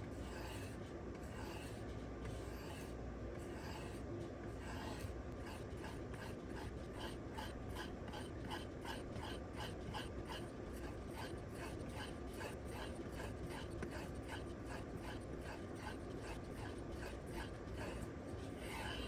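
Steel knife blade stroked back and forth on a leather strop loaded with 1-micron diamond spray: soft, rhythmic swishes, about two to three strokes a second, settling into an even rhythm from about five seconds in.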